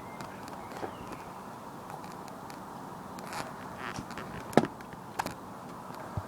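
A Nerf blaster firing with one sharp snap about four and a half seconds in, amid a few lighter clicks from handling it, over a steady background noise.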